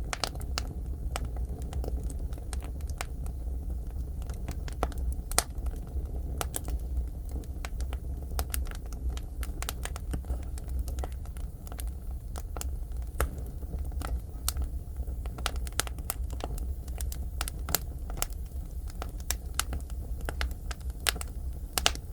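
Firewood burning in a traditional Korean agungi furnace: irregular sharp crackles and pops, a few of them louder, over a steady low rumble.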